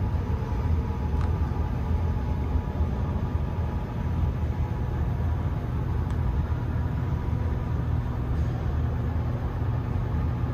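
Steady low rumble with a faint hum: the background ambience of a large indoor exhibit hall.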